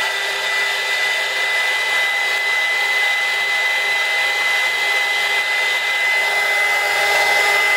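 Heat gun running steadily: the rush of its blowing air under a single high, steady whine from the fan motor.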